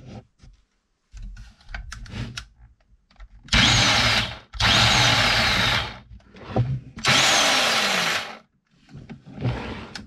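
Challenge electric hedge trimmer's motor and reciprocating blades running in three short bursts of about a second each, switched on and off. The trimmer runs again after its cut power cable has been rewired.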